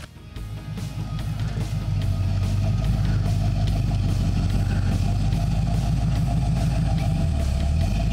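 Background rock music with drum kit, bass and guitar on a steady, driving beat, fading up over the first couple of seconds.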